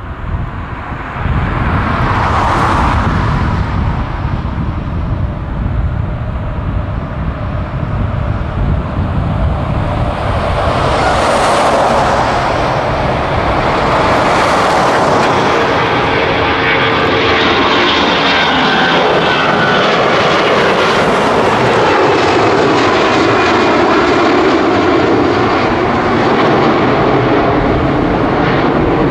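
Airbus A340-300's four CFM56-5C turbofan engines at takeoff thrust as the airliner lifts off and climbs out, a loud, steady jet noise. It steps up about a second in and grows louder again around ten seconds in, then holds.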